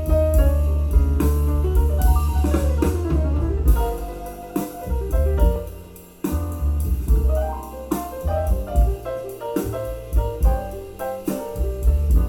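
Instrumental music with piano, drums and a deep bass line, played back as an amplifier sound test. The bass drops away for a moment and returns about six seconds in.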